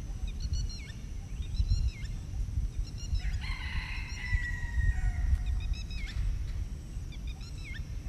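A rooster crows once, a drawn-out call starting about three seconds in, among repeated short chirps of small birds. Low wind rumble on the microphone, louder than the birds, buffets throughout.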